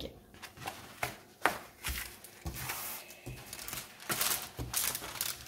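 Thick clear plastic protective film on a diamond-painting canvas crinkling and crackling as it is handled and smoothed back into place, with irregular clicks and rustles that grow busier in the second half.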